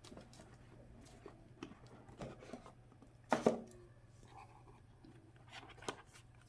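A phone's cardboard box and packaging being handled and opened: scattered rustling, scraping and small clicks, with a louder scrape or tear about three and a half seconds in.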